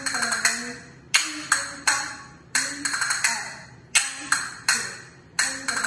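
Flamenco castanets played in a repeating rhythm: sharp single clacks alternating with quick rolls of clicks, each ringing briefly, with a faint tune underneath.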